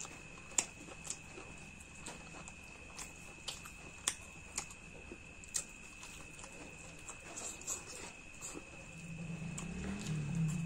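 Close-up eating sounds: irregular wet mouth clicks and smacks, about one or two a second, from chewing mutton curry. A faint steady high whine runs beneath, and a low hum rises near the end.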